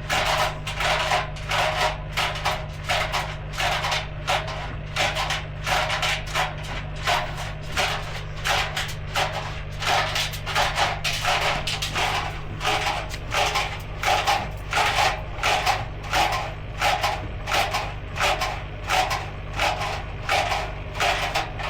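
Old Hotpoint washing machine running with its drum turning slowly and an object loaded inside knocking against it, about two knocks a second, over a steady hum from the motor.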